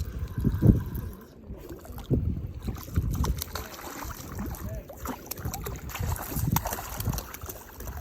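Wind buffeting the microphone in uneven low rumbling gusts.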